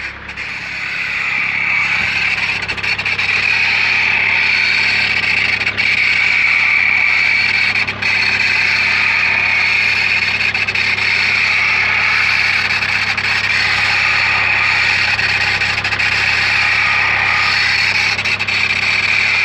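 Renault Laguna 1.9 dCi turbodiesel running, with a steady high-pitched whine from the alternator over a low engine hum. The whine builds over the first couple of seconds and then holds. It is the bad alternator noise the owner is showing: a sign of a failing alternator.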